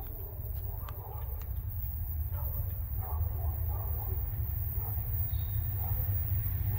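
Low rumble of an approaching Norfolk Southern freight train's diesel locomotives, growing steadily louder.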